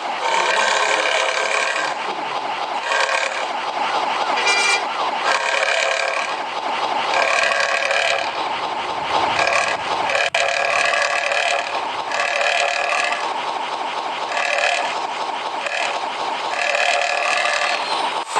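Multi-tone telolet-style air horn of a Langsung Jaya bus, blowing a long run of chord blasts, some short and some over a second long, with brief gaps between.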